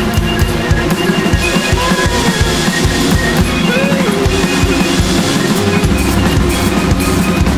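Free-improvised noise music: fast, dense drumming on a Roland TD-17 electronic drum kit, bass drum and snare included, under sustained synth tones with a few short wavering glides.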